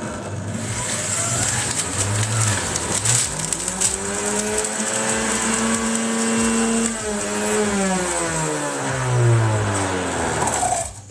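Electric juicer motor running loud as orange pieces are pushed through it. Its hum climbs in pitch over the first few seconds, holds, then sinks before the machine cuts off near the end.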